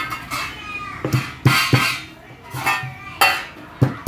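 Pestle pounding whole spices (cardamom, cinnamon, cloves, black peppercorns, ajwain and fennel seeds) in a mortar to crush them coarsely: a few irregular strikes, each ringing briefly.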